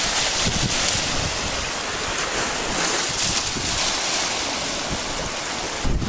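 Choppy sea surf breaking and washing in the shallows, a steady loud hiss, with gusts of wind buffeting the microphone.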